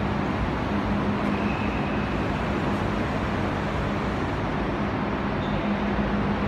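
Steady mechanical drone: an even rushing noise with a constant low hum that does not change.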